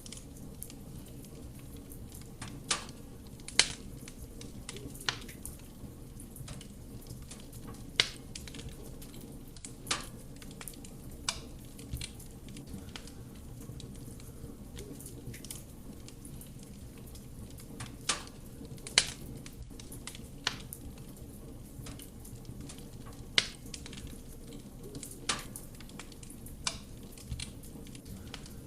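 Wood fire burning in a fireplace: a steady low rumble of flame with sharp, irregular crackles and pops from the burning wood, about a dozen of them, several loud.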